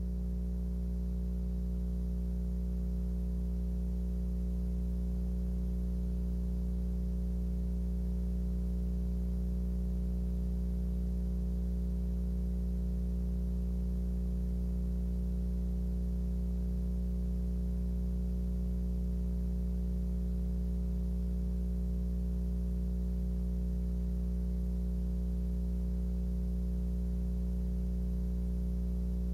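Steady low electrical hum made of several fixed tones over a faint hiss, unchanging throughout.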